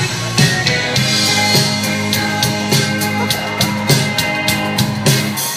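A live rock band playing an instrumental passage, heard from the crowd: electric guitars and bass over a drum kit with regular cymbal hits.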